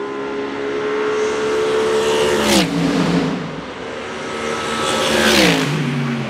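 Two Mercedes-AMG GT3 Evo race cars with naturally aspirated V8s pass one after the other at full speed. Each engine note holds a steady pitch as the car approaches, then drops sharply as it goes by: the first about two and a half seconds in, the second about three seconds later.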